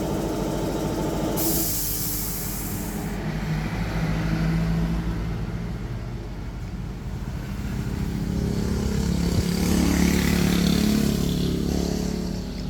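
An engine running steadily, rising in speed and loudness about two-thirds of the way through, then settling back. A short burst of hiss, like air blowing, comes about a second and a half in.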